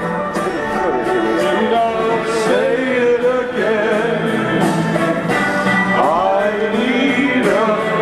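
A man singing into a microphone over backing music with a steady beat.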